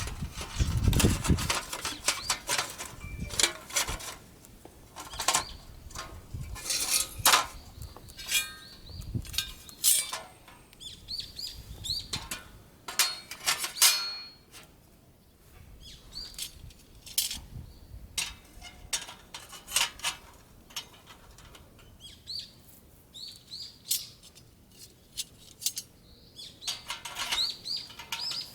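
Irregular clicks, knocks and rustling of camping gear being handled, with small birds chirping in short rising calls now and then.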